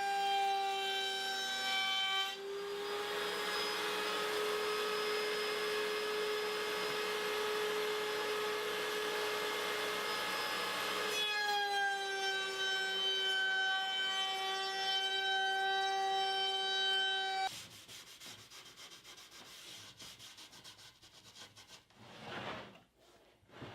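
Stationary woodworking machine running with a steady whine, feeding a board through for about nine seconds with a loud cutting hiss, then running free and shutting off about two-thirds of the way in. Faint rubbing and handling noises follow.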